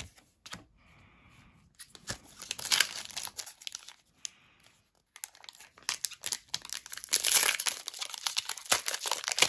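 Foil Pokémon booster pack wrapper crinkling as it is handled and torn open. It comes in two spells: a short one about two seconds in, and a longer, louder one from about halfway.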